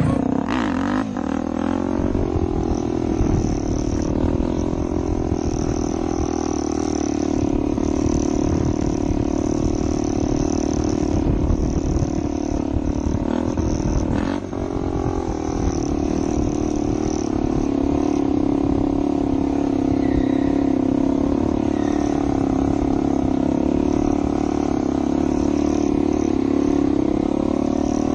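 Supermoto dirt bike engine held at high, fairly steady revs while the bike is wheelied, heard close up with wind buffeting on the microphone. The note dips briefly about halfway through, then settles back to steady high revs.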